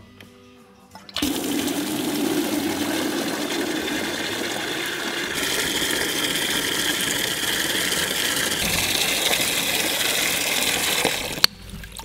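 Water pouring from a red yard hydrant's spout into a black rubber bucket, a steady splashing gush that starts about a second in and stops abruptly near the end with a sharp click.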